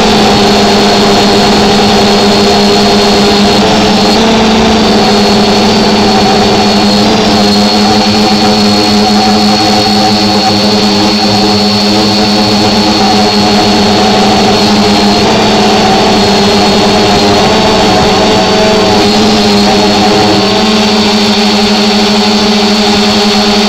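Electric motors and propellers of a small multirotor drone running steadily, heard up close through the camera it carries: a loud hum with a thin high whine above it, the pitch shifting slightly now and then as it manoeuvres.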